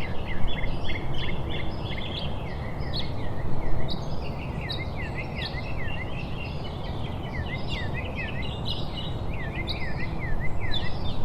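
Nature ambience: many small birds chirping in quick, repeated short calls over a steady low background hiss.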